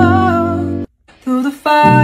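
Music with a voice singing held notes over guitar. It breaks off suddenly just before a second in, gives a short snatch, then comes back briefly before cutting off.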